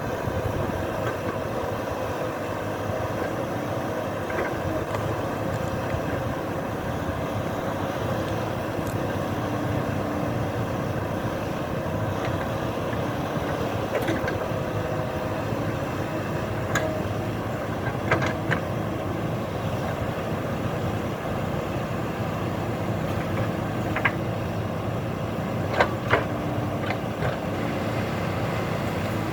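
A steady engine-like drone with a faint hum that comes and goes, broken by a few short, sharp knocks.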